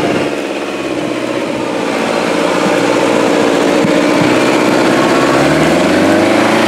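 Off-road trial buggy's engine running close by at a fairly steady speed, then revving up and falling back near the end.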